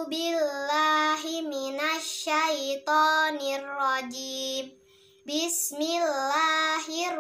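A young girl's voice chanting Qur'anic recitation in a melodic style, in phrases with sliding pitch and a brief breath pause about two-thirds of the way through.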